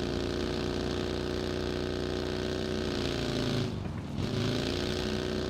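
An engine running steadily, its pitch briefly dipping and coming back up about four seconds in.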